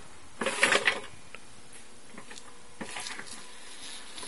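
Power wheelchair base's electric drive motors and gearboxes whirring in short bursts under radio control. The first burst, about half a second in, is the loudest; a weaker one comes near the end.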